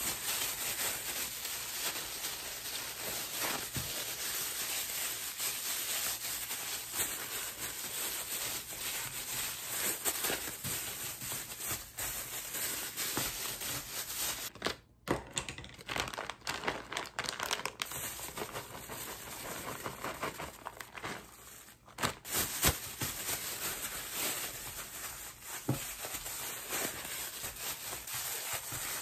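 Thin plastic food bag crinkling and rustling as hands squeeze and knead mashed hanpen with corn and edamame inside it, with two short pauses.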